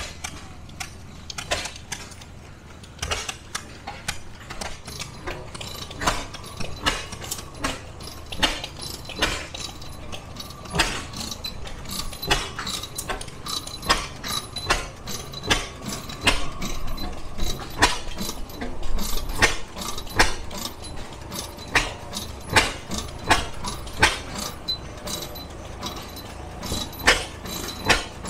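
Antique stationary gas engines running: an irregular series of sharp pops and mechanical clicks over a low steady drone.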